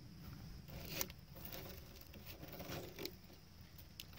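Faint rustling with a few light clicks, from dry leaves and seeds being shifted across the plastic of a half 55-gallon drum, over a low steady rumble.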